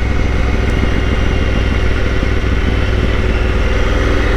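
Honda Africa Twin motorcycle engine running steadily in first gear down a slope, engine braking with the throttle closed.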